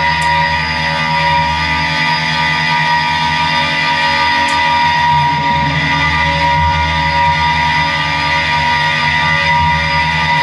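Electric guitar laid flat and played through effects: a dense, steady drone of many held tones, with the low notes shifting slowly.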